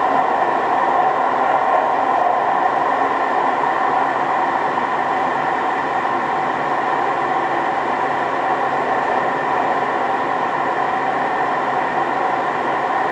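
Local train running steadily along the Ōu Main Line between stations, heard from inside the carriage: a continuous rolling rumble and wheel-on-rail noise.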